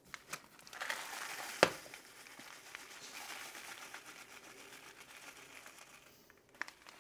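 Rolled oats poured from a paper bag into a cup: the bag crinkles as it is handled, with a sharp tap about a second and a half in, then a steady dry rustle of flakes pouring for about four seconds.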